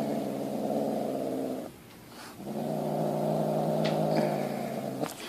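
A pet growling low and steady, breaking off briefly about two seconds in and then growling again.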